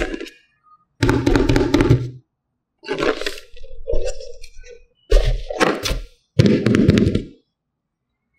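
Small plastic toys and their packaging being handled during an unboxing: five separate bouts of clacking, knocking and rattling, each about a second long, with a sharp knock at the start.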